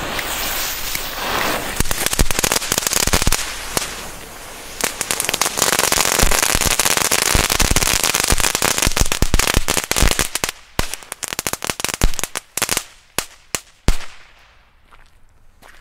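A bundle of small Spider-Light crackling fireworks going off together: a dense, really loud crackle of countless tiny pops for about ten seconds, thinning to scattered sharp pops and dying out about fourteen seconds in.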